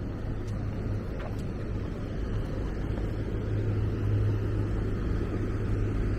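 A vehicle engine's steady low hum over the rush of street traffic, swelling a little about four seconds in.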